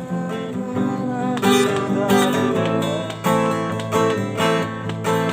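Acoustic guitar strummed in a steady rhythm, playing the chord accompaniment between sung lines.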